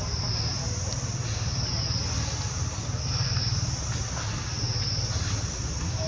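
A steady, high-pitched chorus of insects that swells and fades in slow waves, about every second and a half, over a low steady rumble.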